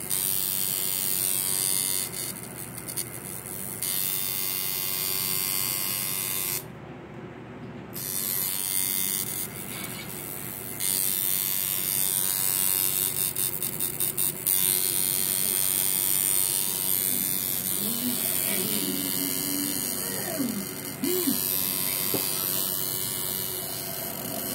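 Coil tattoo machine buzzing steadily while it shades ink into skin, dropping out briefly about seven seconds in.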